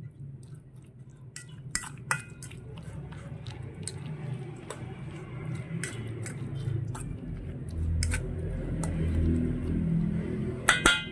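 A metal fork clinking and scraping against a stainless steel bowl in irregular strokes while stirring a wet mix of fish roe, beaten egg and chopped vegetables. A couple of sharper clinks come near the end.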